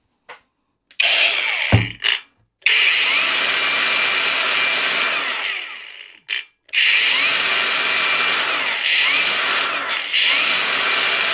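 LiBesta 21V cordless brushless angle grinder run with no load: a short burst of about a second, then two longer runs of a few seconds each with a steady high whine, the motor spinning down gradually after each release. It runs smoothly, with no suspicious noises.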